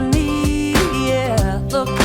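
Upbeat pop song playing, with a steady drumbeat and backing instruments.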